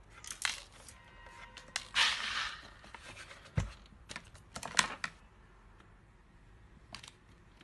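Small steel screws clinking and rattling as they are handled by hand from a plastic box: scattered sharp clicks, a brief rattle about two seconds in, one dull thump, and a cluster of clicks a little later.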